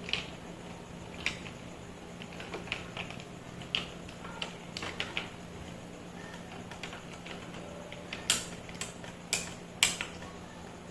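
Irregular light clicks and taps, with four sharper, louder clacks near the end, over a steady low hum.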